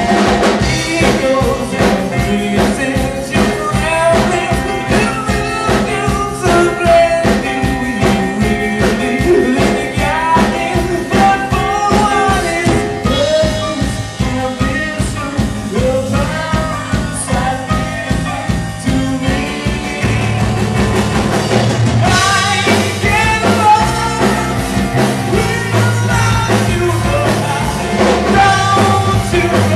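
Live rock band playing, with a male vocalist singing into a microphone over the band. About twenty seconds in, the bass gets heavier.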